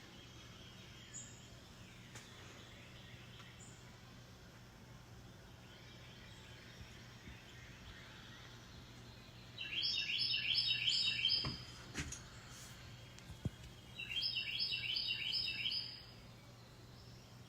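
A songbird singing two loud phrases of rapidly repeated chirping notes, each about two seconds long, the first near the middle and the second about two seconds later, over a faint steady outdoor background hum. A few short sharp clicks fall between the phrases.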